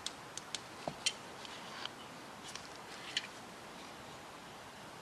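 A few light clicks and taps of small parts being handled on a workbench, spread over the first three seconds, then only faint room hiss.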